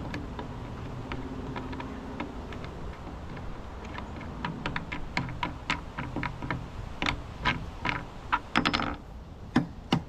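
Irregular sharp clicks and taps of a plastic anchor light being handled and fitted to its mounting bracket, sparse at first and coming thicker and louder over the last five seconds, over a low steady hum.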